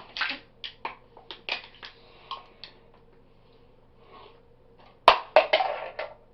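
A man making a string of short, sharp, irregular non-speech noises, with a louder cluster about five seconds in.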